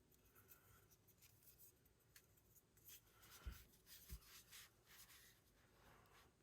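Faint handling noise: light rubbing and small clicks of plastic parts as a screw cover is turned and fitted onto the speaker housing, with two soft knocks about three and a half and four seconds in.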